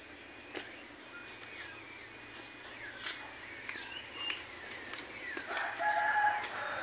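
Birds calling: many short, falling chirps throughout, then a louder held call about five and a half seconds in that lasts about a second.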